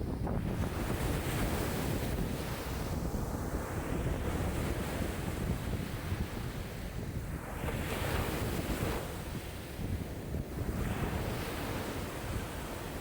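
Lake waves in a strong wind (about 5 m/s), a continuous wash that swells and fades every few seconds, with wind rumbling on the microphone underneath.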